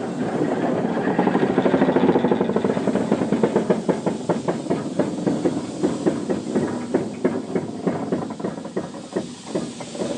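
Steam locomotive climbing a steep bank: a rapid, even run of sharp beats over a steady hiss, loudest in the first few seconds and thinning out toward the end.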